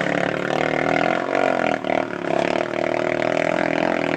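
ATV engine running at a steady speed, its pitch wavering slightly about halfway through.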